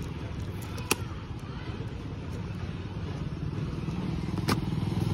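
A motorcycle engine idling steadily, with two sharp clicks, one about a second in and one near the end.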